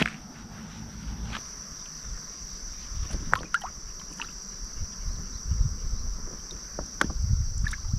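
Shallow stream water sloshing and splashing around someone wading and picking for freshwater snails, with a few sharp clicks of stones. A steady high-pitched insect drone starts about a second in.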